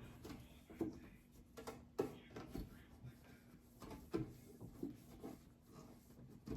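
Scattered light knocks, clicks and rubbing as food items and containers are handled and set down in a refrigerator, over a faint steady hum.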